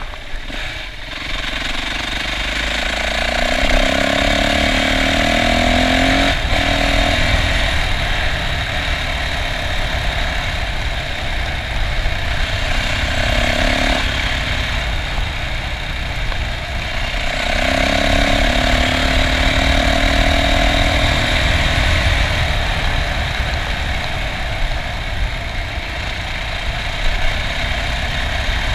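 Yamaha off-road motorcycle engine running under way, heard from the bike itself, its pitch and loudness rising and falling with the throttle over a steady low rumble.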